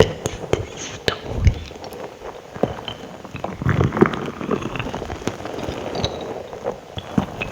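Wet ASMR mouth sounds close to the microphone: irregular clicks, smacks and crackles, a few every second.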